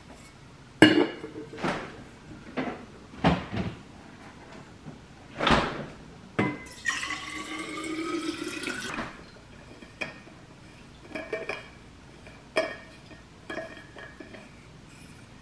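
Water poured from a filter pitcher into a narrow-necked water bottle for about two seconds, the sound rising in pitch as the bottle fills. Before it come several sharp knocks and clicks of the bottle being handled and set on the countertop. Lighter clicks follow as the cap is worked.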